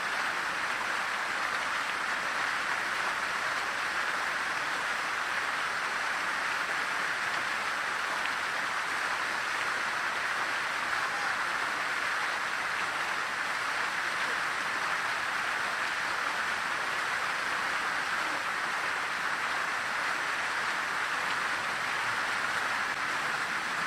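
Fountain water falling and splashing steadily into its basin, an even, unbroken rush of water.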